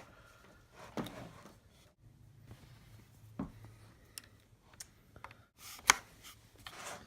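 Audio cable plugs being handled and pushed into jacks: scattered clicks and rubbing, with the sharpest knock about six seconds in.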